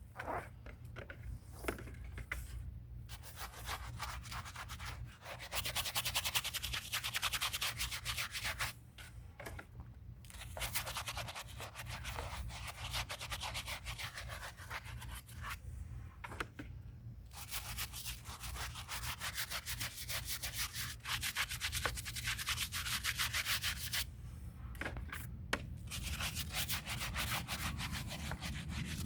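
Scrub brush rubbing over old concrete in fast back-and-forth strokes, in long runs with a few short pauses, scrubbing dirt and grime off the surface.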